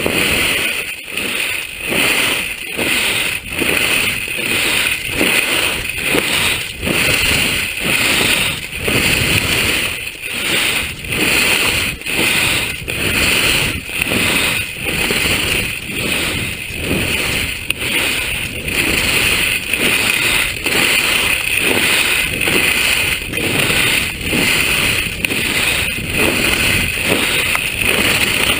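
Rushing wind on the camera microphone and touring skis scraping over groomed snow during a fast downhill run, swelling and dipping about once a second.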